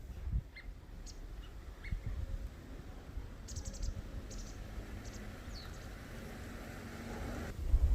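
Small birds chirping: short, scattered high calls, with a quick run of notes about three and a half seconds in.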